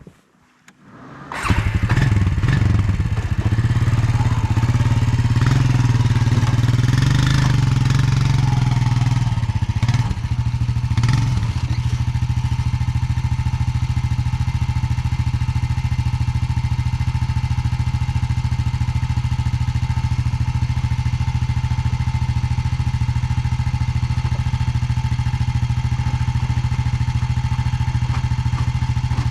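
A vehicle engine starts about a second and a half in, runs faster and unevenly for about ten seconds, then settles into a steady idle.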